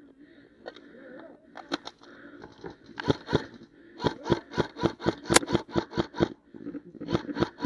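A quick series of sharp clicks and snaps, about three a second, starting about three seconds in, with a few louder, sharper cracks among them.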